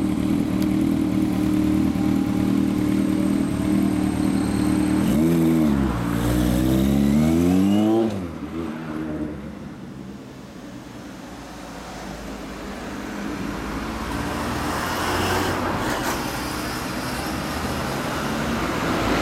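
1983 Kawasaki KZ1000R2's air-cooled inline-four through a Kerker four-into-one exhaust, running at low revs, then revving hard as the bike pulls away: the pitch climbs, dips at a gear change about six seconds in, and climbs again before dropping away about eight seconds in. Traffic noise from passing vehicles rises in the second half.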